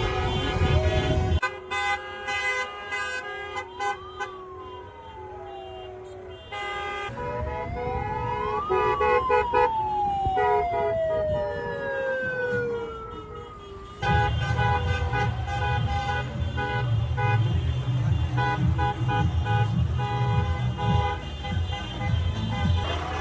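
Many car horns honking and held at once in a slow-moving car convoy, over the rumble of engines and traffic. Through the middle a siren wails, rising and falling slowly twice. The traffic noise drops away suddenly about a second and a half in and comes back loud about two-thirds of the way through.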